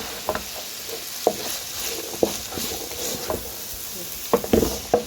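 Vegetables sizzling steadily in hot oil in a pot while being stirred, with a utensil scraping and knocking against the pot about once a second and a quick run of louder knocks near the end.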